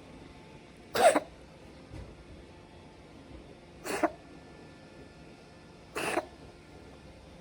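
A cat coughing in three short fits a few seconds apart. It is the sign of a persistent cough that has kept on at the same frequency.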